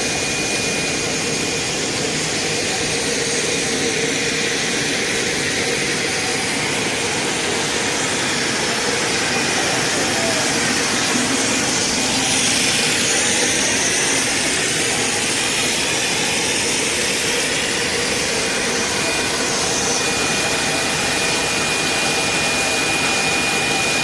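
EVA spiral vacuum-hose extrusion line running: a steady, loud machine noise of motors and drives, with a thin high whine at the start and again near the end.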